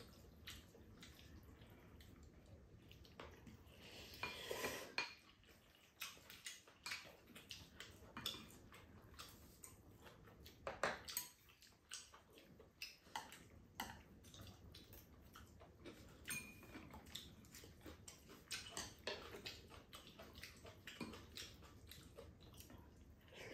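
Chopsticks and spoons clinking and scraping against bowls and a pan while noodles are eaten: light, scattered clicks with a few brief louder patches.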